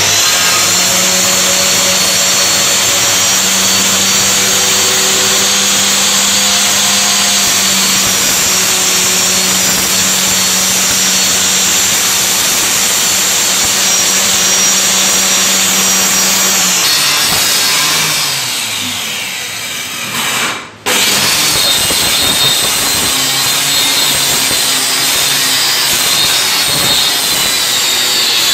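Small handheld electric circular saw cutting through a plywood sheet, its motor running with a steady high whine. About two-thirds of the way through it winds down in pitch, dips almost to nothing, then is abruptly back at full speed, cutting again.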